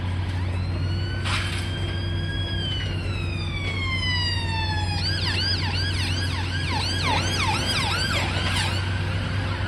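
Emergency vehicle siren: a wail that rises, then falls slowly, then switches about halfway through to a fast yelp. Under it runs the steady low drone of a high-reach demolition excavator's engine.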